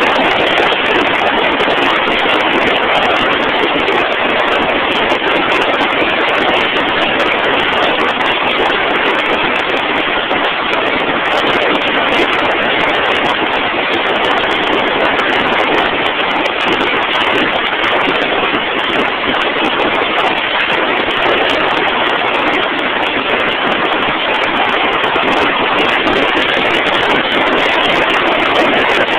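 Drill rig machinery running with a loud, steady, even noise that does not change.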